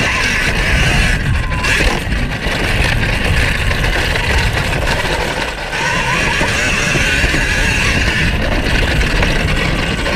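KTM Freeride E electric dirt bike being ridden over a dirt track: heavy wind rumble on the on-board microphone, with the electric motor's faint whine rising and falling as the rider works the throttle, over a steady hiss of riding noise.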